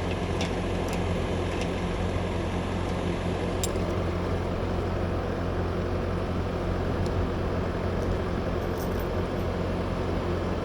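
Skid steer's diesel engine running steadily at a constant speed, with a few faint clicks in the first few seconds.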